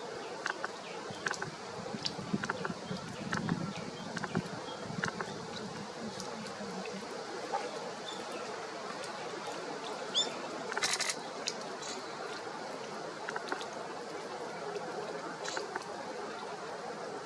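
Woodland background with faint, scattered small-bird calls and many small clicks and taps. A brief harsher burst comes about eleven seconds in.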